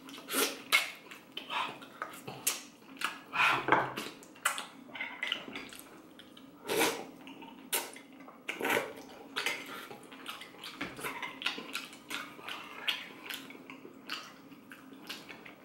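Close-miked eating of beef noodle soup: irregular wet mouth smacks and slurps, mixed with light clinks of utensils against the bowl.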